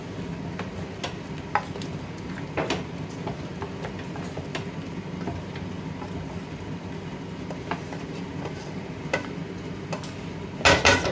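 A wooden spoon stirs chicken pieces through thick masala in a large aluminium pot, with scattered light knocks and scrapes of the spoon on the pot over the masala frying underneath. Near the end comes a quick run of louder knocks of the spoon against the pot.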